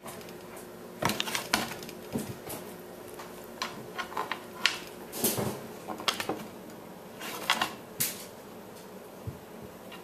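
Beagle puppy's claws tapping and scraping on a wooden tabletop as he paws at a cabbage, with the cabbage's leaves rustling and bumping as it is knocked about. The taps and knocks come in irregular clusters, the sharpest about five and eight seconds in.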